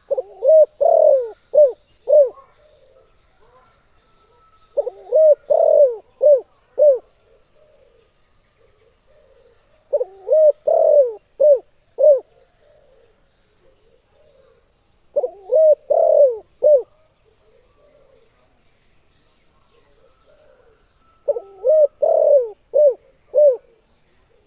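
Spotted dove (tekukur) cooing: five phrases of several coos each, about five seconds apart, with faint softer coos between the phrases.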